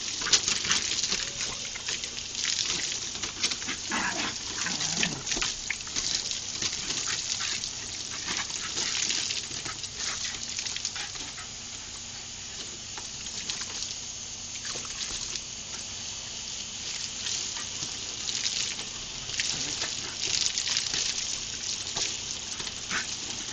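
Garden hose spraying water with continual splashing as a wire fox terrier puppy plays in the stream, with a few brief dog noises about four to five seconds in.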